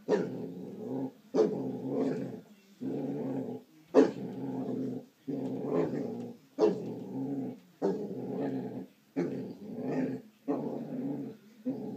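Basset hound growling over and over, in low growls about a second long with short breaks for breath between them, a few opening with a sharp, yap-like burst, the loudest about four seconds in.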